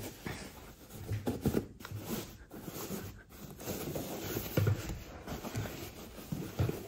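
Folded denim jeans being handled and pushed into a stack on a cupboard shelf: soft fabric rustling with scattered dull bumps.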